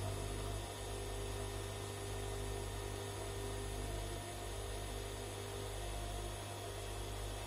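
Bosch Classixx 6 front-loading washing machine in its wash phase, a steady low motor hum as the drum turns the wet pillow.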